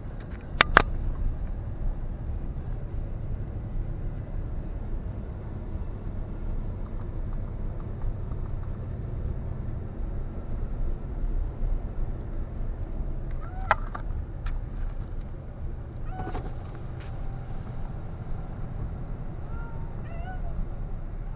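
Inside a pickup truck's cab while it drives slowly, towing a travel trailer: steady low rumble of engine and road. Two sharp clicks come about a second in, and a few faint cat meows from the back seat come in the second half.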